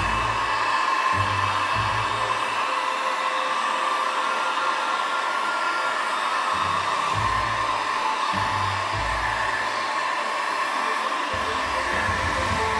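Electric heat gun running steadily, its fan blowing hot air in an even rushing hiss, used to bring out cracks in a crackle finish. Background music with low bass notes plays underneath.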